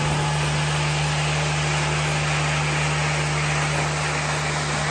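Carpet extractor running as its floor wand rinses the carpet, spraying water and sucking it back up. It makes a steady motor hum under an even hiss of air and water.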